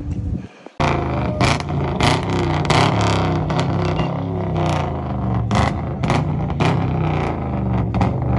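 Chevrolet Camaro's engine running and revving, rising and falling. Sharp cracks sound every second or so over it, after a brief gap about half a second in.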